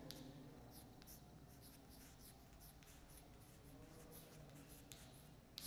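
Faint scratching and tapping of chalk writing on a blackboard, in short strokes, with a slightly louder tap near the end.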